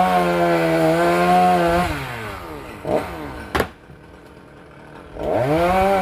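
Chainsaw engine revved up to full speed and held for about two seconds, then dropped back to a low idle. It revs up again near the end. A single sharp knock comes in the idle between the two runs.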